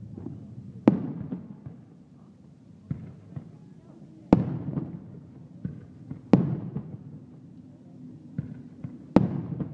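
Fireworks going off: four loud bangs, each trailing off in a rumbling echo, with several smaller cracks and pops between them.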